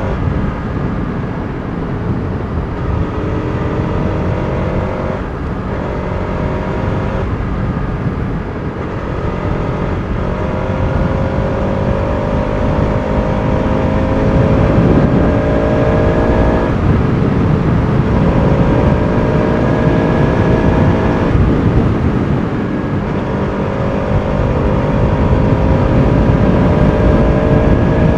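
Bajaj Pulsar RS200's single-cylinder engine heard while riding, its pitch climbing steadily under throttle and dropping back briefly four times as the revs fall and pick up again.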